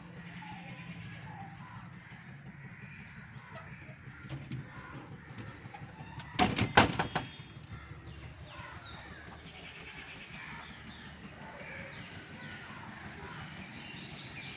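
A quick run of sharp metal clicks and knocks about halfway through, from the metal latch and frame of a glass door being handled. Birds call faintly throughout.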